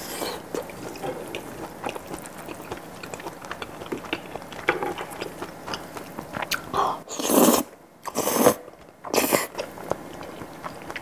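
Close-miked wet chewing of creamy pasta, with many small mouth clicks, then three loud slurps of noodles in quick succession after about seven seconds.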